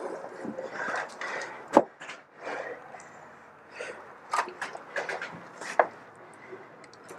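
Scattered sharp clacks and knocks, irregularly spaced, over rustling handling and movement noise.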